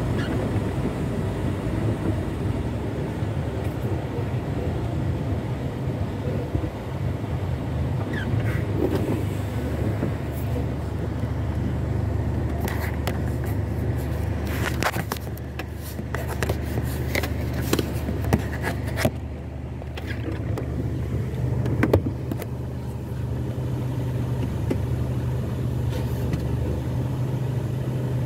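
Truck engine running with a steady low hum, heard from inside the cab, with a scatter of short clicks and knocks through the middle.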